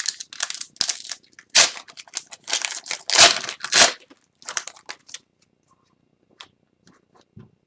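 Foil wrapper of an Upper Deck hockey card pack being torn open and crinkled: a dense run of sharp crackles for about five seconds, then a few faint clicks.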